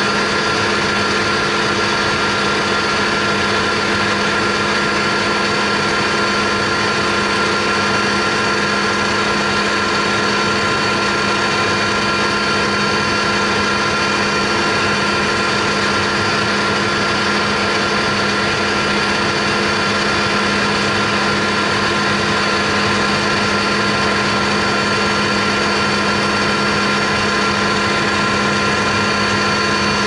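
Steady machine hum with several held tones, unchanging in pitch and loudness throughout.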